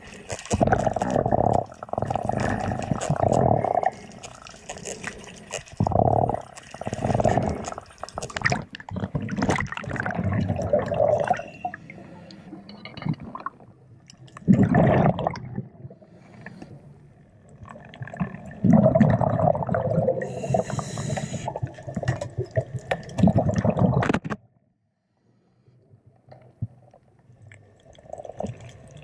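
A diver's breathing and exhaled bubbles, heard underwater: bursts of bubbling, rushing water lasting a few seconds each, with quieter gaps between. The sound cuts off suddenly near the end.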